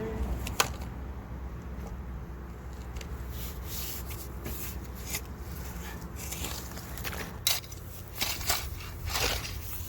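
A shovel scraping and crunching in soil as dirt is backfilled around a buried valve box. The scrapes are scattered and grow more frequent in the last few seconds, over a steady low rumble, with one sharp click about half a second in.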